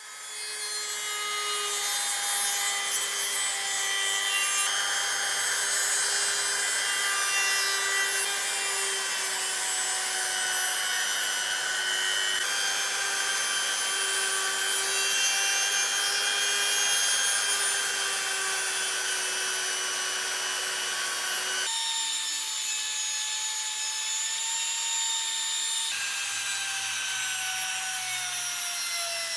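A power tool with a steady motor whine abrading metal, with continuous grinding hiss. The sound jumps abruptly a few times, like cuts between takes, and the whine sags slightly in pitch near the end.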